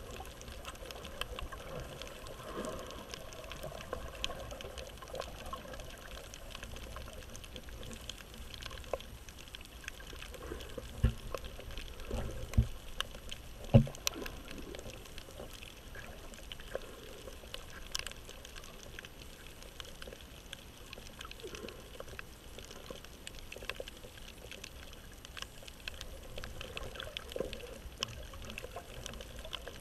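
Underwater sound on a shallow coral reef, recorded through an action camera's waterproof housing: a steady muffled water noise with many scattered sharp clicks, and a few low thumps about eleven to fourteen seconds in.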